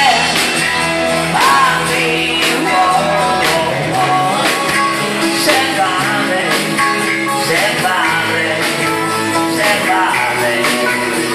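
A live rock and roll band playing: guitars, bass and a Sonor drum kit, with a steady beat.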